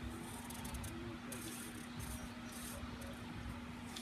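Faint scratching strokes of a drawing tool on paper that come and go, over a steady low electrical hum and hiss.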